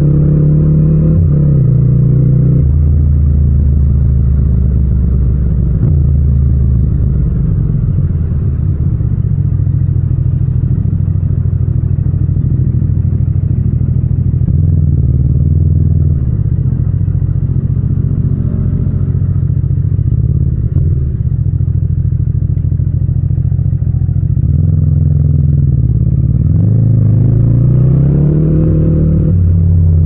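Yamaha MT-07 (FZ-07) 689 cc parallel-twin engine running at low revs while riding. It eases off as the bike slows in the middle, then rises in pitch as it revs up and accelerates near the end.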